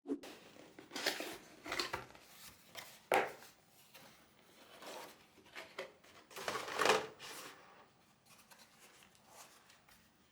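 Irregular rustling and scraping of things being handled, in uneven bursts with the loudest about three seconds in and about seven seconds in.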